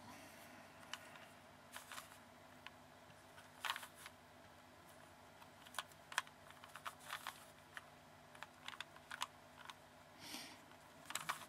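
Rubik's Cube being turned by hand: faint, irregular plastic clicks of the faces snapping round, some single and some in quick clusters with pauses between.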